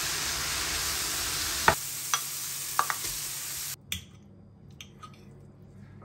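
Sliced mushrooms sizzling as they fry in a pan, stirred with a wooden spoon that knocks against the pan a few times. The sizzle cuts off suddenly a little past halfway, leaving only a few faint clinks of a fork on a plate.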